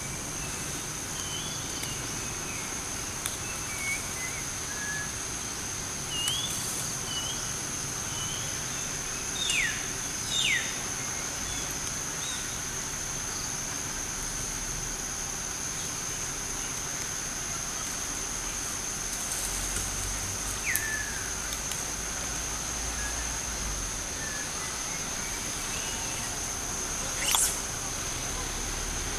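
A steady high-pitched insect drone with scattered short bird chirps and a few quick falling whistled calls, the loudest near the end.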